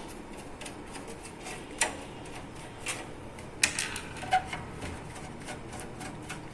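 Irregular small clicks and ticks as a desktop computer's power supply unit is unscrewed and taken out of the case, a few sharper knocks among them.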